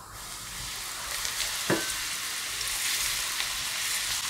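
Smoking-hot oil poured over Sichuan peppercorn powder, white pepper, flour and diced spring onion, sizzling as it hits the spices: the hiss builds over the first second, then holds steady, with one light knock a little under two seconds in. The hot oil is blooming the spices to release their flavour.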